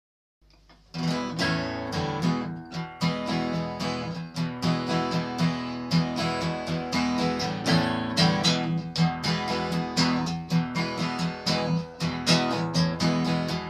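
Acoustic guitar playing a slow blues intro: plucked and strummed notes over a steady bass line, starting about a second in.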